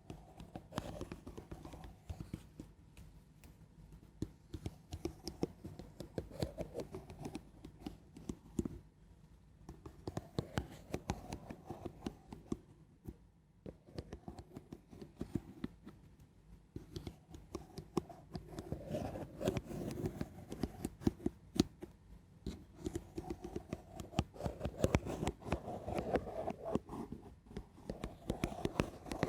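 Gentle, slow ASMR scratching close to the microphone: dense crackly scratch strokes in stretches, with short pauses about 9 and 13 seconds in.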